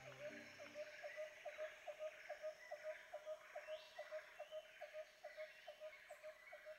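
Ultrasound Doppler fetal heartbeat, faint and regular, at about two and a half beats a second, in line with the machine's fetal heart rate reading of 160 bpm.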